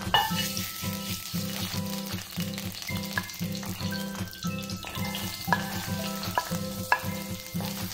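Oil sizzling in a hot frying pan as peeled garlic cloves are added and begin to fry, under background music with a steady beat.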